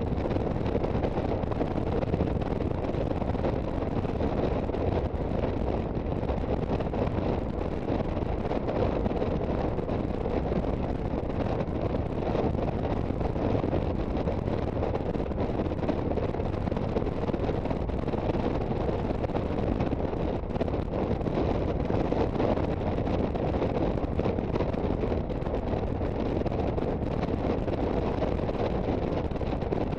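Steady wind rushing over the microphone of a moving Aprilia Sportcity Cube 250 scooter, with its engine running evenly underneath.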